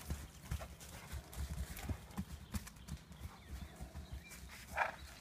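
Hoofbeats of Spanish Mustangs galloping and bucking on grass, an irregular patter of soft thuds. A brief, louder higher-pitched sound comes near the end.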